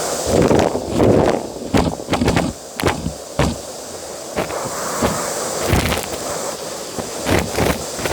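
Vacuum cleaner running with its nozzle worked over a bed, with irregular clatter and crackle as crumbs and small debris are sucked up.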